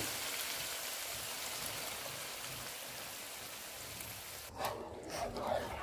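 Chicken masala sizzling in a hot nonstick pan as yogurt thinned with water goes in. The sizzle is a steady hiss that slowly dies down, then cuts off about four and a half seconds in.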